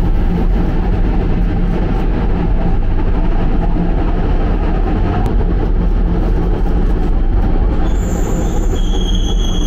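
Ganz MFAV train of the Budapest M1 underground running through the tunnel, heard from inside the car: a steady, loud rumble of wheels on rails. A thin, high, steady squeal joins near the end.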